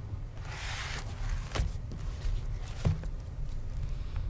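Meeting-room background through the table microphones: a low steady hum, a brief rustle about half a second in, and two light knocks about a second apart near the middle.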